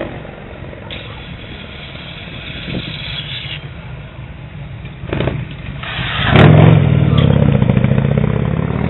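Motorcycle engine running as the bike rides up and passes close by, getting much louder about six seconds in.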